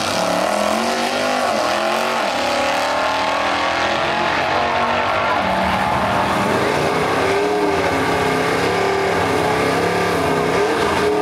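Built Duramax 6.6-litre V8 turbo-diesel pickup with compound twin turbochargers making a full-throttle quarter-mile drag-strip pass. Its engine note bends up and down as it goes through the gears.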